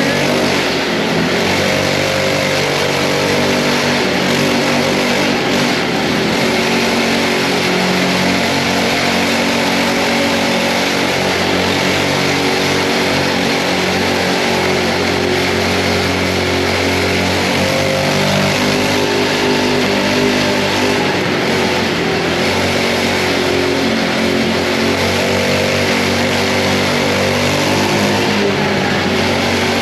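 Mini bike's small engine running while being ridden, its pitch rising and falling a little with the throttle, with wind rushing over the microphone.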